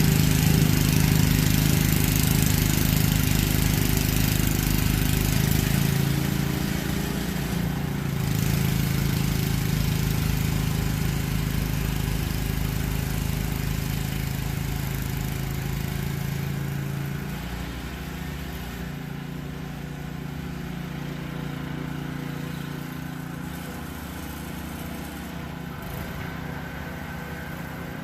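New gas snowblower's engine running steadily, growing fainter after about six seconds.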